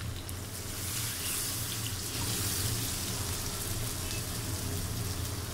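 Water being poured into a hot pan of fried fish curry masala to make the gravy, a steady rushing hiss throughout.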